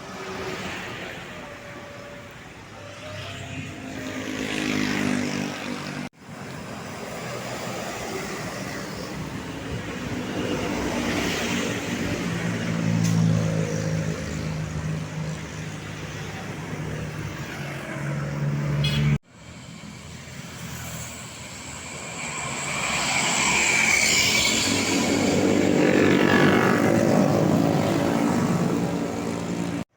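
Large buses driving past on a road, each one's engine noise swelling and fading as it goes by. The sound cuts off abruptly about six seconds in and again about two-thirds of the way through.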